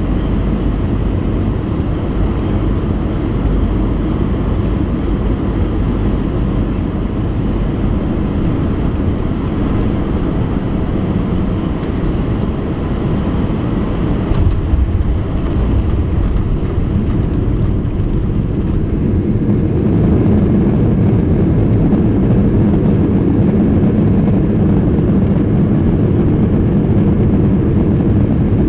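Airbus A320 cabin noise from a window seat as the jet rolls on the ground after landing: a steady low rumble of engines and wheels with a lighter hiss of air. About 20 seconds in, the hiss fades and the low rumble grows slightly louder.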